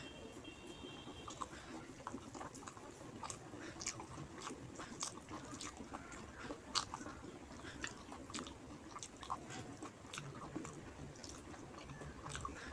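Close-up chewing and biting of mouthfuls of rice and fish curry: a steady run of short wet clicks and smacks, with one sharper click about seven seconds in. A faint steady beep sounds in the first second and a half.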